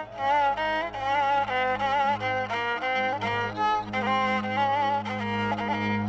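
Upper Egyptian rababa, a bowed spike fiddle, playing a wavering, ornamented melody line between sung verses, over a steady low bass note from the band.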